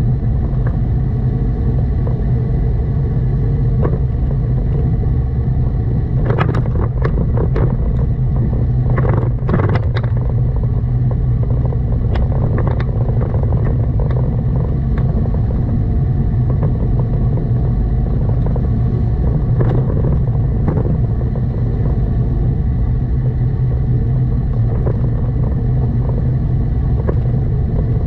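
Steady low rumble of a car driving: engine and road noise. A few short sharp clicks or knocks come about six to ten seconds in.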